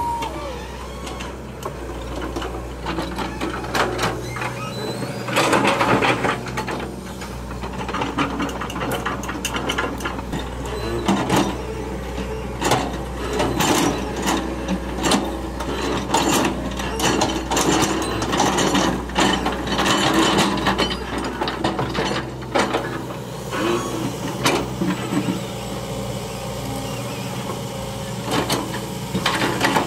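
Hydraulic excavator's diesel engine running steadily under work, with repeated clanks and knocks from the machine as it works the soil.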